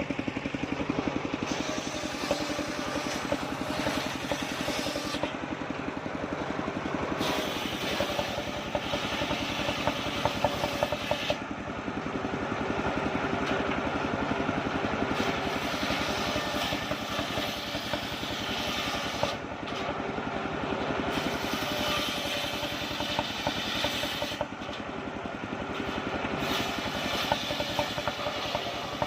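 Engine of a mobile circular sawmill running steadily, with a higher hissing noise of the blade cutting through wood rising and dropping away several times.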